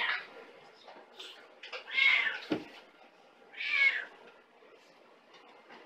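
Tortoiseshell cat meowing three times, short calls about two seconds apart, the last falling in pitch at its end. She is attention-seeking, clingy and wanting affection while rubbing against a child's legs.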